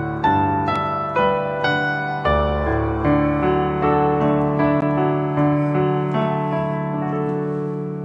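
Piano playing a slow melodic passage over held chords, a new note struck about every half second, each ringing on and fading.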